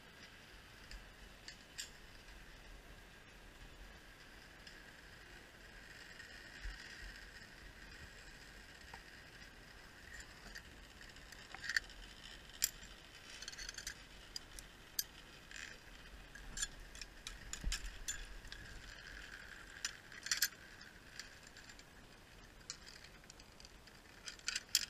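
Metal zipline hardware, carabiners and a trolley, clinking and clicking as it is handled and clipped onto the steel cable, with scattered sharp clicks over a faint steady hiss.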